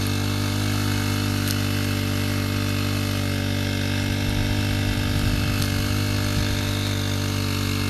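A pressure-washer (doorsmeer) machine, used as a weed-killer sprayer, running with a steady low hum, with some uneven low rumbling about halfway through.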